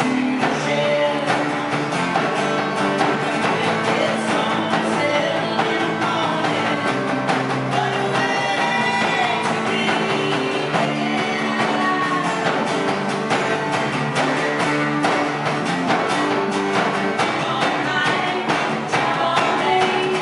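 A live country-rock band playing a song, with strummed acoustic guitar, electric guitar and a woman's singing voice.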